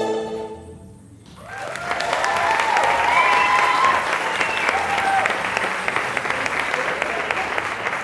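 The last notes of the dance music fade out, and about a second and a half in an audience breaks into steady applause with cheering voices.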